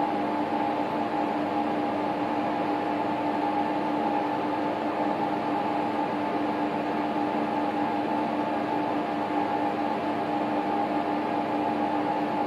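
A steady machine hum with two constant tones over an even hiss, unchanging throughout, with no knocks or crashes.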